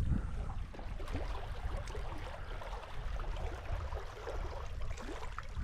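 Low wind rumble on the microphone, with faint scattered light ticks and clicks.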